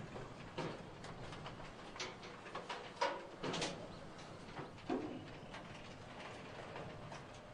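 A few separate clunks and knocks over a steady outdoor hiss, as cars are driven up a hinged steel loading ramp onto a rail car-transport wagon. The loudest knock comes about three seconds in.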